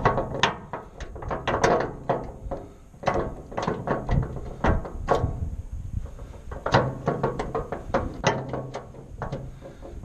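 Rapid, irregular metallic clanking and rattling, several knocks a second, over a faint low hum.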